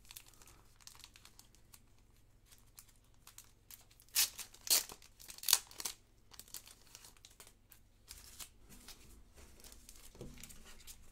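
Clear plastic wrap around a stack of baseball cards crinkling in the hands, then torn open with three loud rips about four to six seconds in, followed by quieter crinkling.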